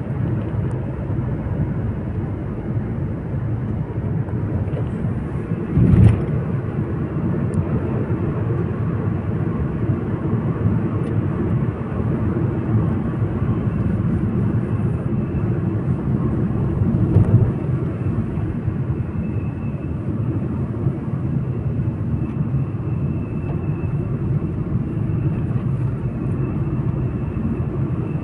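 Steady low rumble of a moving vehicle, road and engine noise, with a short thump about six seconds in and a smaller one near seventeen seconds.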